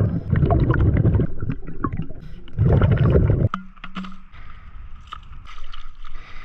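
Underwater rumble and gurgling from a scuba diver's exhaled bubbles, coming in two loud bursts. About three and a half seconds in it cuts off suddenly to much quieter above-water sound, with light clicks and small splashes of water.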